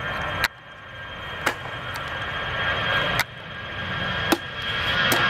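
Jet aircraft engines growing steadily louder, a low rumble with a steady whine on top. The sound is broken by four sharp clicks, each followed by a brief sudden dip in level.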